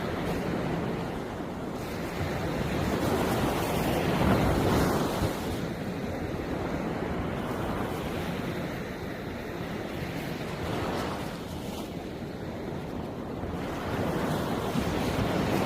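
Sea surf: waves breaking and washing ashore in a steady rush. The rush swells about four seconds in, eases in the middle, and builds again near the end.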